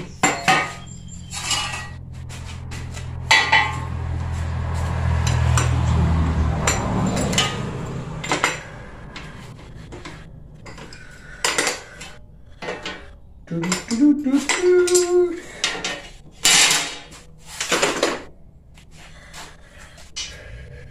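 Loose steel pieces, angle iron and a wire barbecue grill grate, clanking and clinking as they are picked up and set down on a workbench. The clanks come in irregular strikes throughout, a few of them ringing briefly. A low steady hum swells over the first several seconds and fades out about eight seconds in.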